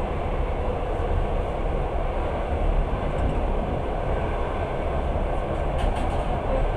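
Passenger train in motion, heard from inside the carriage: a steady rumble of wheels on rails, with a few faint ticks near the end.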